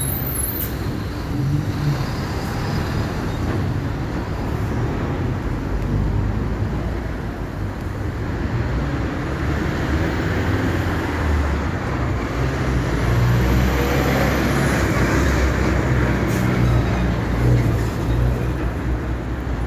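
Diesel engine of a Mercedes-Benz OF 1519 bus running steadily, its rumble getting a little louder in the second half.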